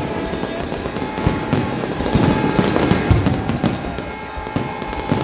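Fireworks going off in a rapid, irregular string of bangs and booms, with music playing underneath.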